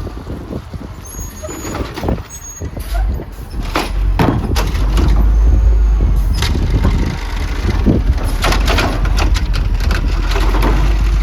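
Garbage truck running, with repeated sharp clanks and bangs and a heavy low wind rumble on the microphone.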